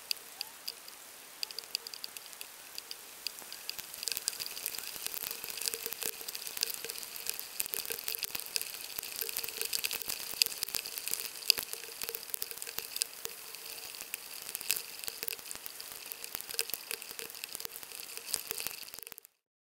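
Rain falling, with many drops tapping sharply on the camera's case close to the microphone. It grows heavier about four seconds in and cuts off abruptly near the end.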